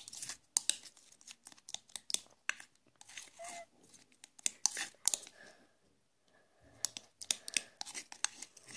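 Spoon stirring a sticky glue and nail-polish slime mixture in a glass bowl: irregular scraping and clicking against the glass, with a pause of about a second midway.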